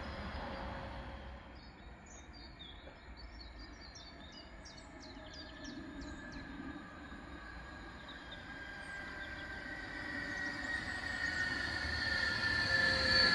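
Siemens Desiro HC double-deck electric multiple unit approaching, growing steadily louder over the last few seconds with a high whine that slowly falls in pitch. Small birds chirp a few seconds in.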